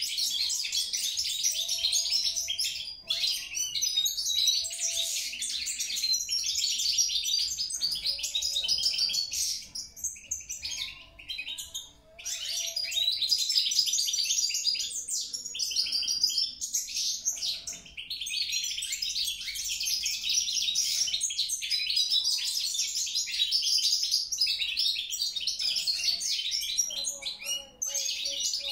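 European goldfinch singing: long runs of fast, twittering song broken by a few short pauses.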